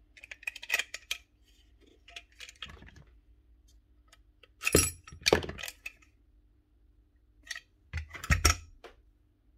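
Small metal parts of a Paslode gas nailer clinking and knocking against each other and the workbench as they are handled and set down, in several short clusters, the loudest about five seconds in and again near the end.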